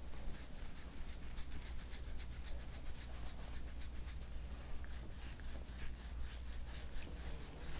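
Fingers rubbing and kneading the skin of a man's neck during hands-on soft-tissue work: a run of soft, scratchy rubbing strokes, several a second, over a low steady hum.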